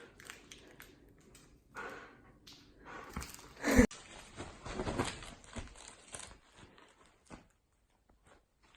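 A dog chewing and gnawing: irregular crunching and crinkling sounds, with one loud sharp sound about four seconds in and quieter toward the end.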